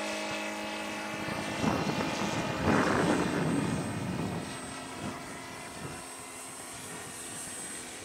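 Saito FG-60R3 three-cylinder four-stroke radial petrol engine of a large radio-controlled Pietenpol Air Camper model running steadily in flight overhead. A loud rough rushing noise covers the engine note from about two to four seconds in, and the engine is fainter after that.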